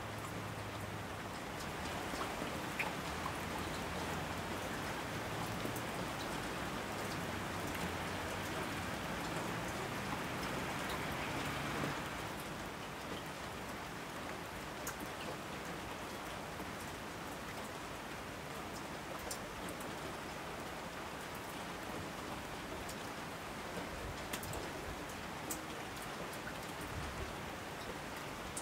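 Steady rain falling, with scattered individual drops ticking through it; it eases slightly about twelve seconds in.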